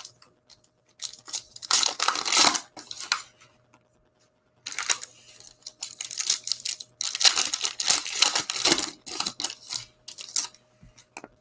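Foil trading-card pack wrappers being torn open and crinkled by hand, in two stretches of crackling and ripping, the second longer, with a few small clicks near the end.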